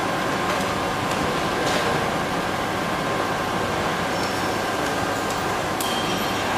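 Steady machine whir with a constant high hum running through it, and a couple of faint clicks.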